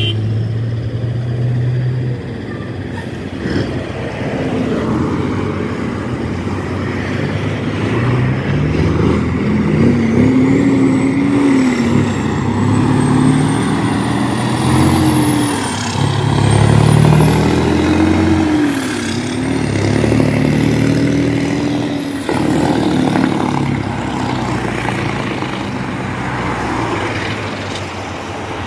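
Diesel tractor-trailer hauling a shipping container pulling away and accelerating past, its engine note climbing and dropping several times as it shifts up through the gears, with a high whistle rising and falling along with the engine.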